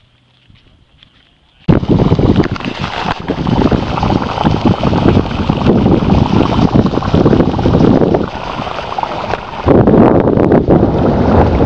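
Wind buffeting the microphone, a loud, gusting rumble that cuts in suddenly about a second and a half in after near quiet.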